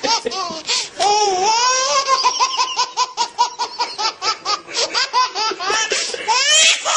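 A baby laughing hard in a fast run of short, high-pitched laughs, with a longer wavering squeal about a second in and a rising squeal near the end.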